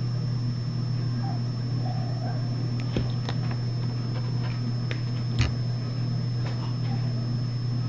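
Steady low electrical hum with a faint high whine above it, broken by a few light clicks and taps as trading cards are handled on a tabletop.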